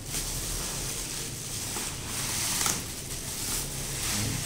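Pink plastic packing material rustling and crinkling as it is pulled out of a cardboard box.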